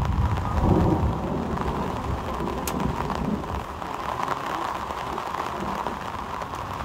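Steady rain falling, with a low rumble underneath that is strongest in the first couple of seconds.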